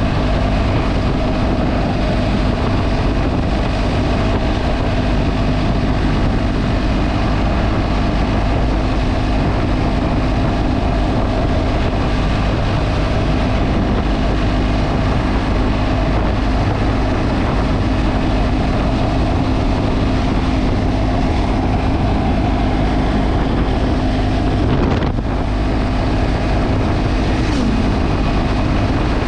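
Motorcycle engine running at a steady cruising speed, its note held constant, under heavy wind buffeting on the microphone.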